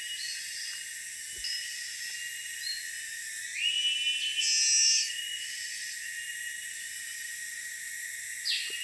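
Tropical forest insects making a steady high-pitched drone, with a louder shrill call that swells about three and a half seconds in and stops about a second and a half later.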